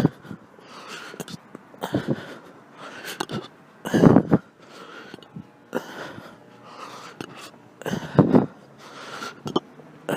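A woman hiccupping over and over, each one a short, sharp gulp about every two seconds. The strongest come about four and eight seconds in.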